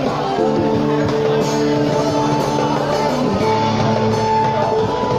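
Live instrumental fusion duo playing: guitar with drums, the guitar holding long sustained notes that change about every second.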